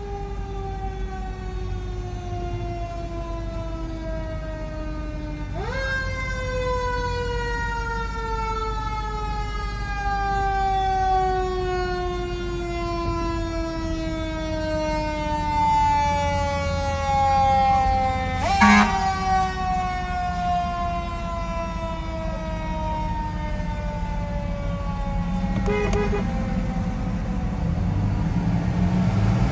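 Fire truck siren: one long wail sliding slowly down in pitch, sharply spun back up about five seconds in and again about eighteen seconds in, then fading near the end. A heavy truck engine revs up under it near the end.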